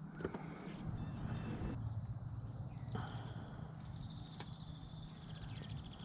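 Insects, such as crickets, trilling steadily at a high pitch, over a low rumble, with a couple of faint clicks about three and four and a half seconds in.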